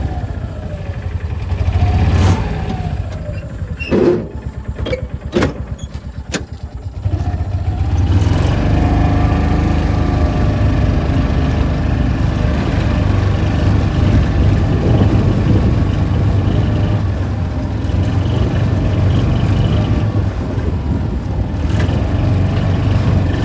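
A vehicle engine running with its pitch falling, then a few seconds of choppy, uneven sound with several clicks, after which the engine runs steadily again.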